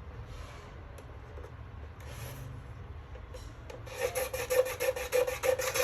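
Rapid back-and-forth scraping or rasping, about five or six strokes a second, starting about four seconds in, with a steady squeaky tone under the strokes.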